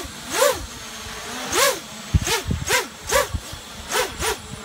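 Mini quad racing drone with EMAX RS2205 2300 kV motors spinning 5-inch props, its motor-and-prop whine sweeping up and back down in about seven quick throttle punches. A few low thumps come about two seconds in.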